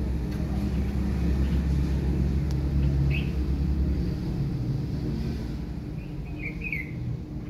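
Low rumble of a motor vehicle that eases off about halfway through, with brief bird chirps, once near the middle and again near the end.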